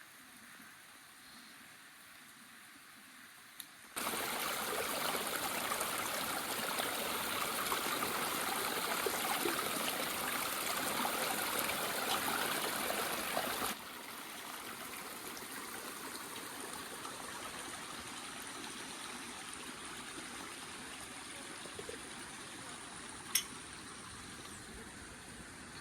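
Flowing water, like a stream, running as a steady rushing noise that jumps suddenly louder about four seconds in and drops back to a lower level about ten seconds later. A single sharp click sounds near the end.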